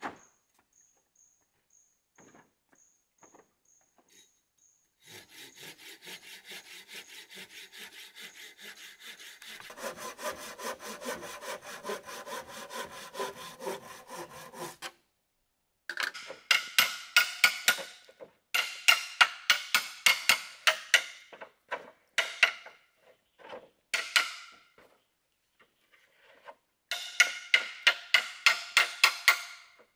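Hand saw cutting through bamboo with quick back-and-forth strokes. A long run of sawing starts about five seconds in, then several shorter, louder runs follow with pauses between them.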